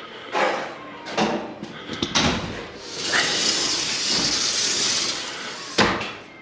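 Sliding lanai enclosure door panels running along their track: three short swishes, then one long slide of about two seconds, and a sharp knock near the end as a panel reaches its stop.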